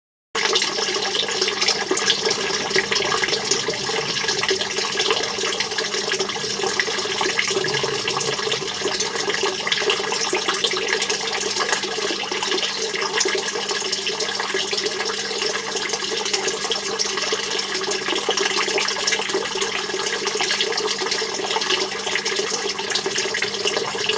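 Steady rushing, water-like noise with a low steady hum underneath, starting abruptly and holding at an even level throughout.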